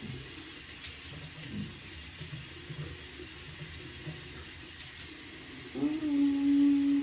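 Tap water running into a bathroom sink while a face is rinsed off. Near the end a loud, steady pitched hum comes in and holds.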